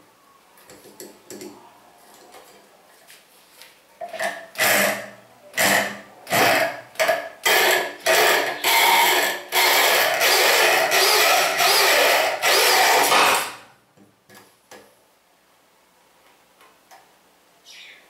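Electric drill boring a hole through a flattened copper tube strip. It runs in several short trigger bursts, then in one steady run of about five seconds that stops suddenly. Faint handling clicks come before the drilling starts.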